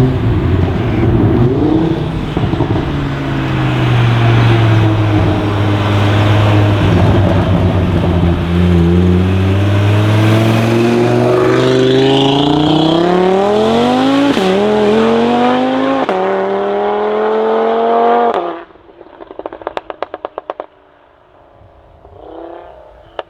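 Audi RS3 8V's turbocharged five-cylinder engine, Stage 2 tuned with a downpipe, running steadily and then accelerating hard, the pitch climbing with two quick upshifts. It lifts off suddenly and a rapid string of exhaust crackles and pops follows for about two seconds.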